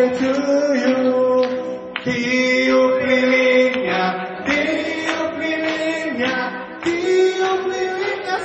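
A group of people singing a birthday song together, several voices in unison with long held notes.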